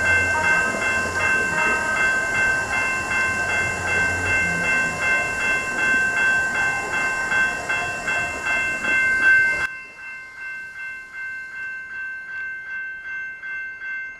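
Railroad crossing warning bells ringing steadily, about three strikes a second, over the running noise of a light-rail trolley train passing through the crossing. About ten seconds in the train noise cuts off suddenly and the bells go on, quieter.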